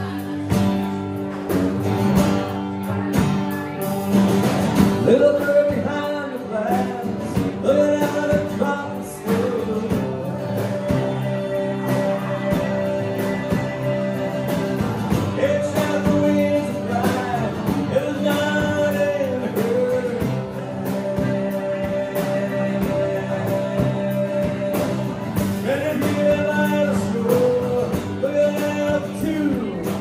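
Live rock band playing with electric and acoustic guitars and a drum kit, under a sung lead melody of long held, wavering notes.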